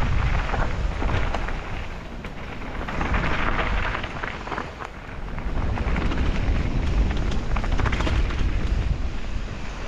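Wind buffeting the action-camera microphone on a fast mountain-bike descent, with tyres crunching over gravel and the Santa Cruz bike rattling over rocks in many short clicks and knocks. The sound eases twice, about two seconds in and again near the five-second mark, then builds back up.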